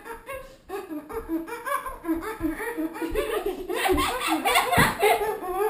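Children laughing and giggling in rapid bursts, getting louder about halfway through, with a few low thumps.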